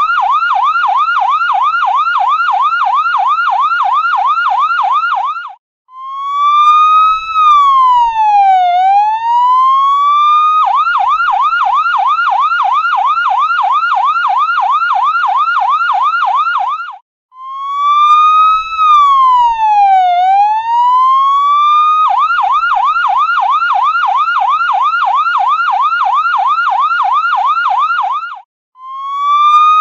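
Electronic ambulance siren cycling between a rapid yelp, held for about six seconds at a time, and a slower wail that falls and then rises again. Brief breaks come between the two patterns.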